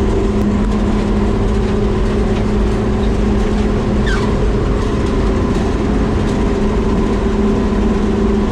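Vehicle engine and road noise droning steadily at highway speed, with two steady engine tones over a low rumble. A short falling squeak sounds about four seconds in.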